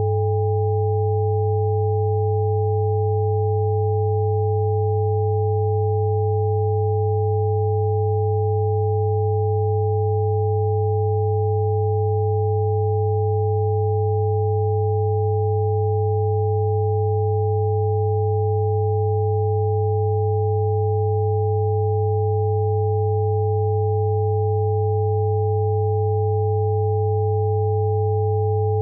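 Electronic sine tones for a sleep-healing frequency track: a low steady hum under two higher pure tones, held unchanging throughout.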